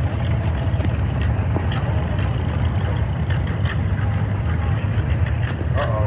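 Antique Farmall tractor engine running steadily as the tractor drives past close by, a low, even rumble.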